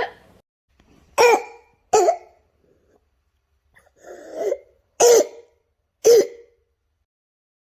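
A cough played as an example of whooping cough (pertussis): about five sharp single coughs, roughly a second apart, the fourth one breathier.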